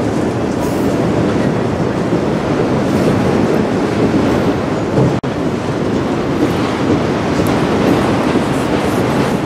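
Autorack cars of a freight train rolling slowly past through a speed restriction: a steady rumble of steel wheels on rail.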